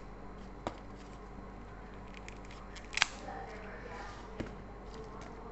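Kitchen scissors snipping baby kailan (Chinese broccoli) stems: a few sharp, separate snips, the loudest about three seconds in.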